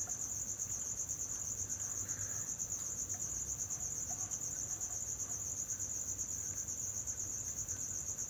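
Insect trilling: a steady, high-pitched, rapidly pulsing trill that goes on without a break.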